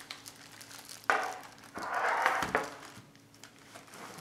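Plastic packaging crinkling as it is handled on a table, with a sharp knock about a second in and a longer rustle around two seconds in.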